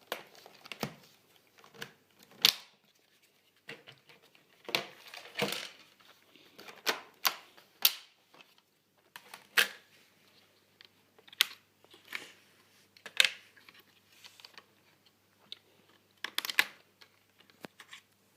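Irregular sharp plastic clicks and knocks, about a dozen, with short rustles between them, from a laptop being handled and opened. The source is an HP ProBook 4530s's plastic casing and latches.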